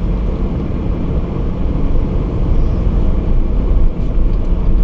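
Steady low vehicle rumble, heard from inside a car.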